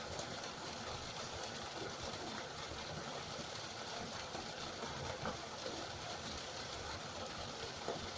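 Steady rain falling, an even hiss with a few brief louder ticks.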